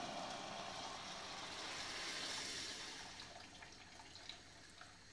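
Hot water pouring from an electric kettle into a steel pot of toasted wheat, a steady splashing hiss that fades out about three seconds in, with a few small clicks near the end.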